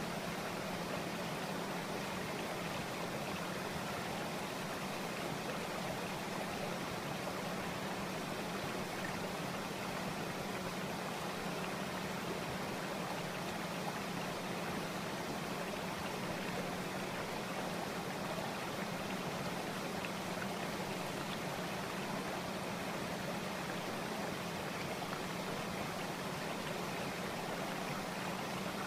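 A steady rushing noise, like running water, that holds the same level and never changes.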